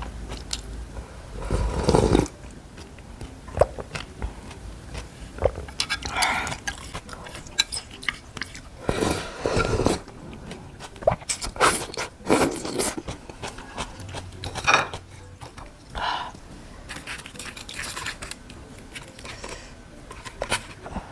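Close-up eating sounds: a person slurps and sips broth from a bowl of rice noodle soup, with the loudest slurps about two seconds in and again around nine to ten seconds, between smaller mouth clicks and chewing.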